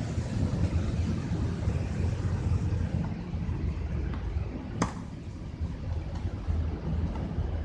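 Steady low wind rumble on the microphone, with one sharp pop of a tennis racket striking a ball a little past the middle.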